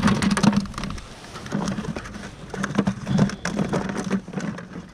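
A mackerel flapping in a plastic bucket: bursts of rapid slaps and knocks against the plastic, with a hollow drumming, coming in several spells a second or so apart.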